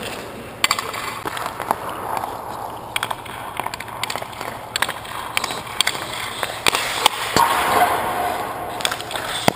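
Hockey goalie's skate blades scraping and carving across the ice as he pushes and slides around the crease, with sharp clicks and knocks of equipment throughout.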